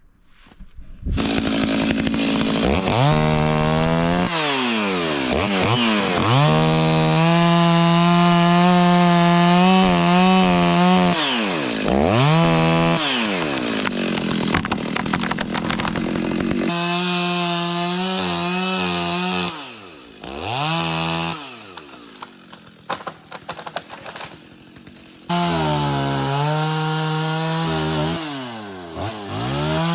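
Stihl chainsaw at full throttle cutting firewood, its engine pitch sagging under load in the cut and climbing back again and again. About twenty seconds in it drops to a quieter idle, then revs back up about five seconds later.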